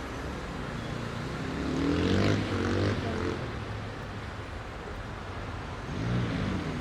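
Steady hum of heavy city rush-hour traffic. A motor vehicle passes close about two seconds in, its engine note rising and falling away, and a second, quieter one passes near the end.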